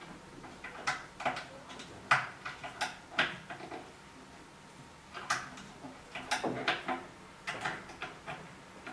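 Birch cabinet parts knocking and clicking as they are handled and fitted together by hand: a dozen or so short, irregular wooden knocks in two clusters.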